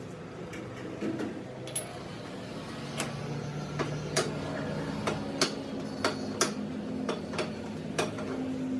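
Lathe motor running with a steady hum, with a dozen or so irregular sharp metallic clicks and knocks from work at the machine.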